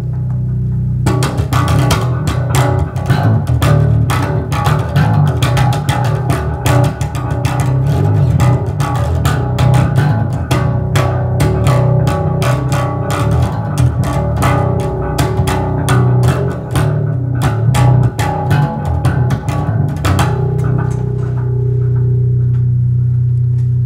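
Gio Ibanez GSR205 five-string electric bass played fingerstyle in a fast run of plucked notes. Near the end it settles on one held low note.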